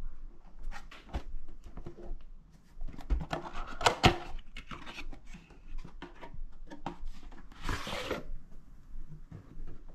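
Gold card whisky gift box being handled and opened by hand: cardboard rubbing and scraping with many small clicks, a sharp snap about four seconds in, and a longer scraping rub near eight seconds.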